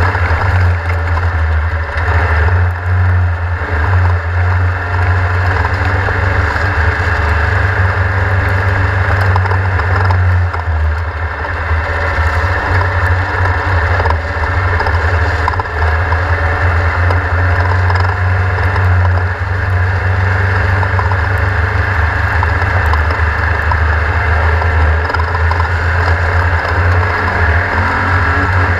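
Air-cooled 1600 cc VW engine of a Class 1600 off-road race buggy running hard under load, heard from on board with a steady deep drone and dense rattling noise from the car. The loudness dips briefly a couple of times.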